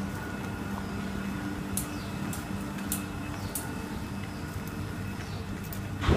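Class 444 Siemens Desiro electric multiple unit moving along a station platform. Its traction equipment gives a steady hum with pitched tones that fade out about two seconds in, over a few light clicks, with one sharp knock near the end.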